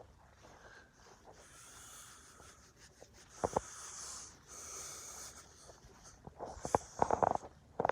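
Someone breathing heavily close to the microphone in two long breaths, with a tap about halfway through and a run of quick knocks and steps near the end.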